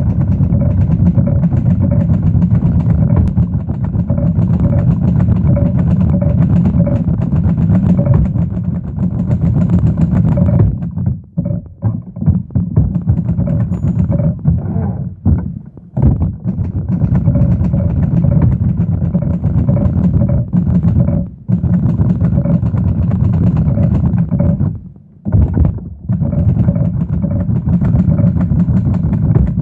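Fast typing on a Seidel & Naumann Ideal manual typewriter: a dense, continuous clatter of keys and typebars striking the platen, broken by a few short pauses.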